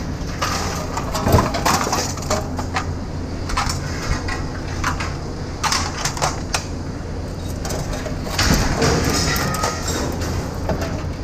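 Scattered knocks and clatter of scrap metal being handled, over a steady low hum.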